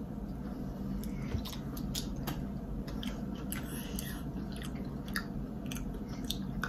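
Eating sounds: scattered small clicks and wet mouth noises from chewing, licking fingers and picking at a boiled crab leg's shell.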